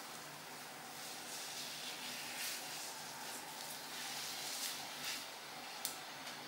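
Faint soft rustling of a damp paper sheet mask being peeled off the face, over a steady hiss, with one small tick near the end.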